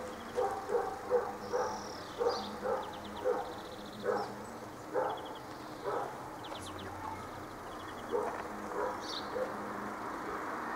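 A dog barking repeatedly in short irregular runs, falling silent near the end, with brief high bird chirps over it.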